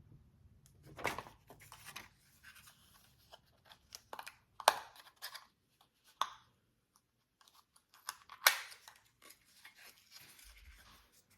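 Small packaging being handled and opened by hand: scattered crinkles, rustles and clicks, with a few sharper snaps or tears, the loudest about four and a half and eight and a half seconds in.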